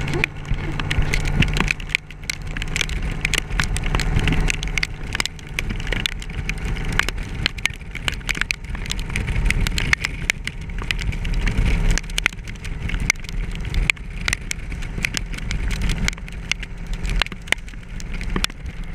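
2006 Yamaha Royal Star's V4 engine running steadily at road speed, under a constant crackle of sharp ticks from rain striking the helmet camera.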